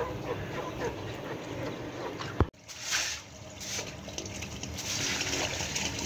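Water trickling and splashing, with one sharp click about two and a half seconds in.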